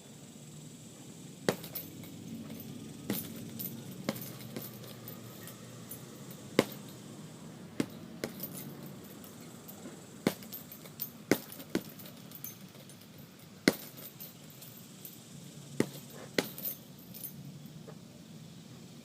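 Boxing gloves punching a heavy bag: sharp smacks at irregular spacing, some single and some in quick runs of two or three, as combinations are thrown.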